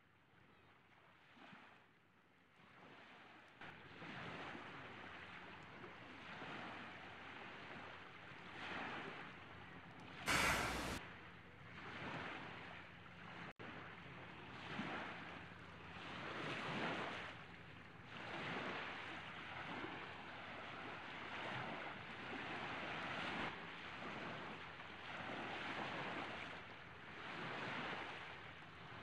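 A sleeping person snoring, with breathy breaths swelling and fading about every one and a half to two seconds. The snoring is faint at first and steadier from a few seconds in. About ten seconds in there is one loud, short burst of noise.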